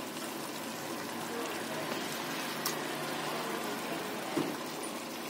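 Yogurt-based biryani masala simmering in a pressure cooker pan, a steady soft bubbling hiss, with a faint click about four seconds in.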